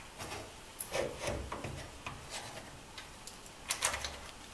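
Steel drag bar of a home-built lathe taper attachment being handled and bolted in place: scattered light metal clicks and rubbing, the loudest about a second in and again near the end.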